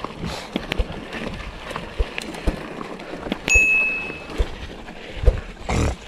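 Mountain bike rolling down a loose, rocky dirt trail: a running rattle of clicks and knocks from the tyres and frame over stones. About three and a half seconds in, a sharp knock is followed by a short high squeal, and a heavy knock comes near the end.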